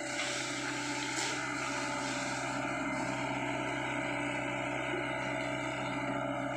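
Sany SY55C mini excavator's diesel engine and hydraulics running steadily under load as the machine swings round.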